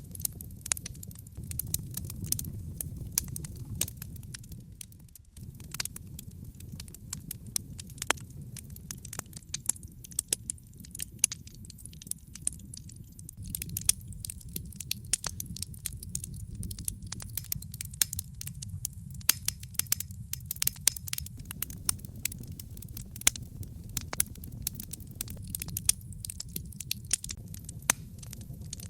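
Logs burning in a fireplace, crackling with frequent sharp pops and snaps over a steady low rumble of the flames.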